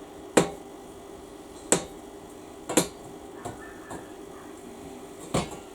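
Hammer striking steel four times, a second or more apart, to snap out a nearly cut-through middle section of a welded steel piece.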